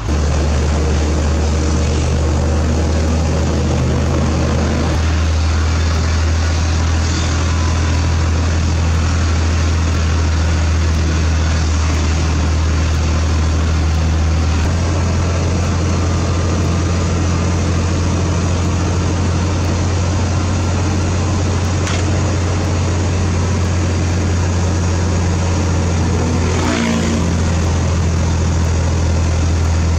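Heavy diesel engine running steadily with a deep, low drone.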